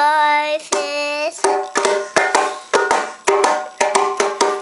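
A child's voice holds two sung notes, then from about a second and a half in a child's hands play a fast run of strokes on a djembe, about six a second, each with a short ring.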